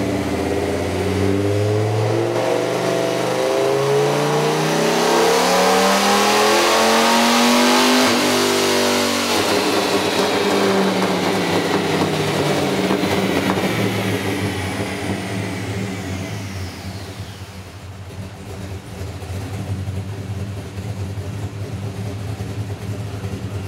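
2006 Dodge Ram SRT-10's 8.3-litre V10, running through long-tube headers and Cherry Bomb Vortex mufflers, making a full-throttle pull on a chassis dynamometer. The engine note rises steadily for about eight seconds, then the throttle closes and it drops back to idle. A high whine falls away over several seconds as the rear wheel and roller spin down.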